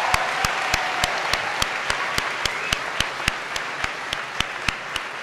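Large crowd applauding, slowly fading. Sharp, evenly paced claps from one person close by stand out at about three a second.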